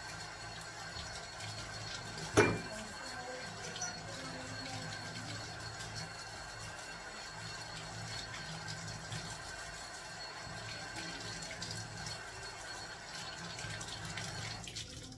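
Kitchen tap running into the sink, water splashing over hands washing produce under it. One sharp knock about two and a half seconds in.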